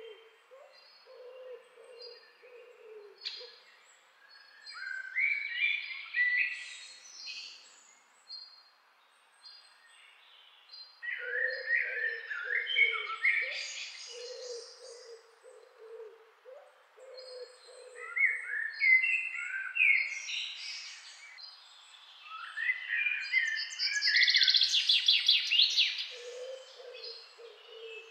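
Several birds singing and calling: bouts of warbling song, short repeated high chirps between them, and a separate bird giving low repeated calls.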